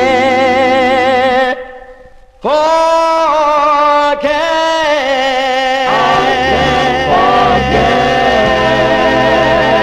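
Doo-wop vocal group record: a held sung chord stops about a second and a half in, and after a brief pause a song opens on sustained vocal harmonies with vibrato. Bass and band come in about six seconds in.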